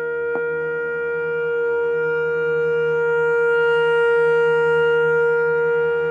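Tenor saxophone holding one long steady note, swelling slightly, over a lower sustained drone. A faint click about half a second in.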